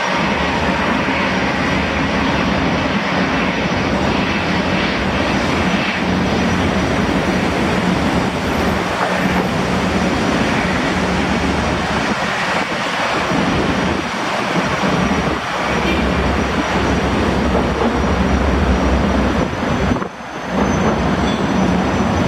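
Boeing 929 Jetfoil under way, its twin gas turbines running with a steady high whine and a low hum over a loud rush of waterjet spray and churned water.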